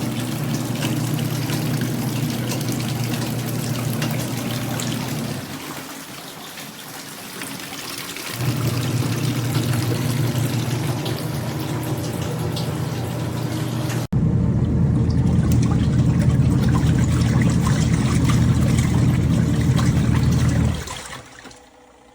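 Twin-tub portable washing machine running its wash cycle: the motor hums while the pulsator churns the water and clothes. The motor eases off about six seconds in and picks up again two or three seconds later, as the agitator reverses, and the sound falls away near the end.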